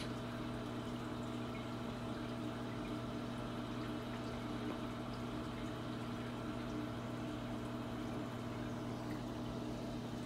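Saltwater reef aquarium system running: a steady sound of moving water from the overflow and sump, with a low steady hum from the pumps.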